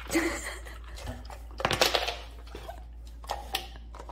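Husky eating ice cubes from a bowl: crunching and clinking in irregular bursts, loudest about two seconds in, with a few clicks near the end.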